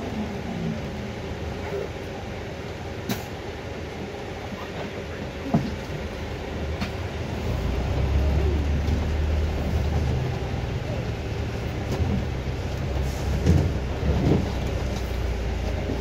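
Cabin noise on the upper deck of a Volvo B5LH hybrid double-decker bus: a steady low drone with a few short rattles and knocks. The low rumble grows clearly louder about halfway through.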